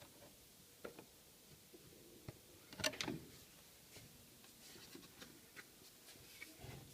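Faint handling noise: a few light clicks and knocks, the loudest cluster about three seconds in, over quiet room tone.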